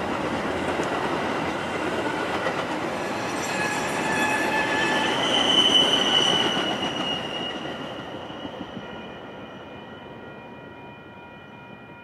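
Metra commuter train's cars rumbling past a grade crossing, with a high wheel squeal swelling about halfway through. The roar then fades steadily as the train moves off, leaving the crossing bell ringing on with steady tones.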